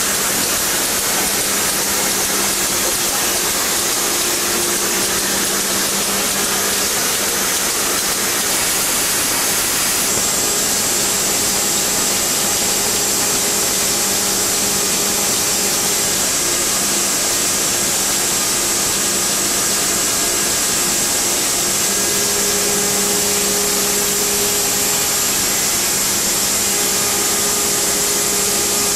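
Diaper and sanitary napkin production line machinery running steadily: a continuous loud hiss with a steady low hum, joined by a high thin whine about ten seconds in.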